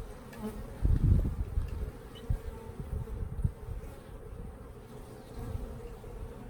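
Honeybees buzzing around an open hive, a steady hum. A low rumble about a second in, with a few soft knocks later on.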